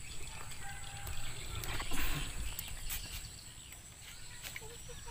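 Quiet rural outdoor ambience with faint animal calls and a brief noisy swell about two seconds in.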